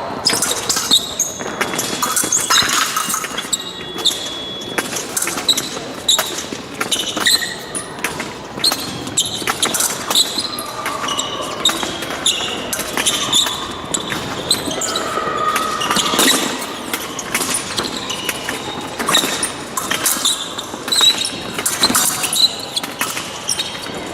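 Épée fencers' footwork on the piste: shoes squeaking and stamping in an echoing hall, mixed with short, sharp metallic clinks of the blades meeting.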